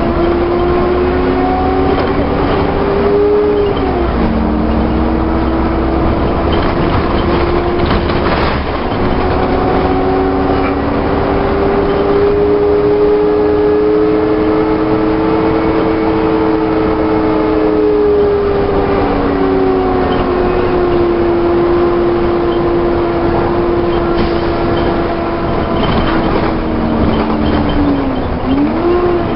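Volvo Olympian double-decker bus heard on board, its diesel engine and drivetrain pulling steadily along the road. The note dips and picks up again at a gear change about 4 seconds in and again near the end, and rises slowly and falls back in between. There is a brief rattle about 8 seconds in.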